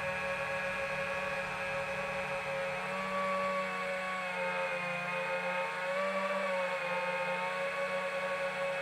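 FPV quadcopter's motors and propellers running with a steady whine that dips slightly in pitch about halfway through and rises again a second later, following small throttle changes.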